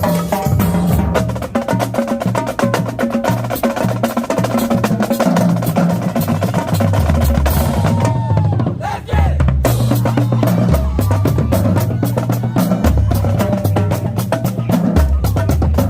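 Marching drumline playing a cadence: rapid snare drum strokes and rolls over tuned bass drums stepping between pitches. The playing thins out briefly about halfway through, then comes back in full.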